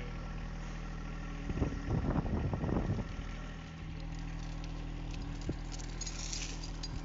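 A John Deere 1025R compact tractor's three-cylinder diesel idling steadily. A burst of scraping and knocking comes about a second and a half in and lasts about a second and a half, and short shovel scrapes in dry dirt come near the end.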